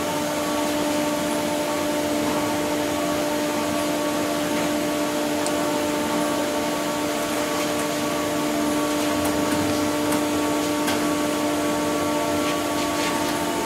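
A steady machine hum over a hiss, with several steady whining tones and a few faint clicks.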